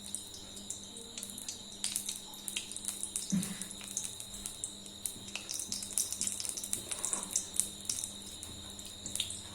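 Cooking oil poured into a pan and heating, with many scattered faint crackles and ticks.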